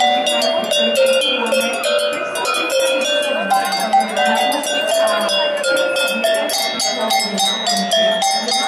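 A set of metal cowbells hung in a row from a wooden pole, struck in quick succession to play a tune, with notes of different pitches ringing over one another.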